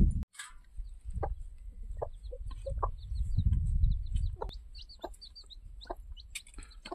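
Chickens clucking: short, separate clucks scattered throughout, with higher, thinner chirps between them over a low rumble.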